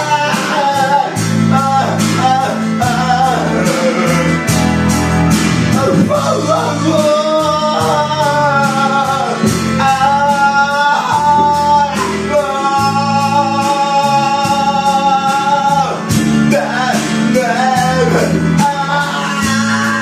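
Man singing karaoke into a handheld microphone over a backing track with guitar and a steady beat. He holds two long notes in the middle.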